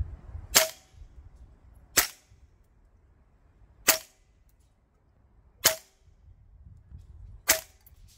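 Cyma/T8 DDM4 PDW gas blowback airsoft rifle on green gas firing five single shots through a chronograph, each a sharp crack of the gas discharge and cycling bolt, about two seconds apart.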